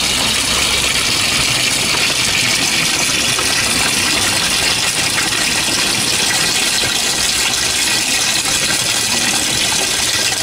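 Coin-operated washing machine filling with water: a steady rush of water pouring into the tub.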